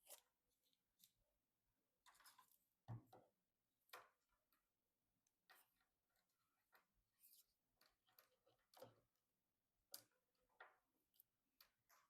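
Faint, irregular clicks, taps and light knocks of computer parts and screws being handled during PC assembly, with a couple of short rustles; the loudest knock comes about three seconds in.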